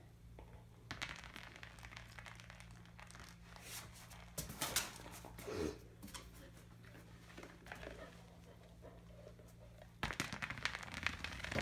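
Faint rustling, crackling and clicking from an Akita puppy mouthing a rubber ball and moving about, with a louder burst of crackling about four and a half seconds in and a dense run of clicks and crackle near the end.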